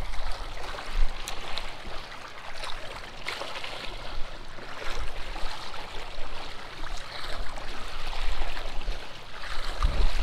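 Shallow river current flowing and rippling steadily around the wading angler, with a low rumble underneath and a few faint ticks.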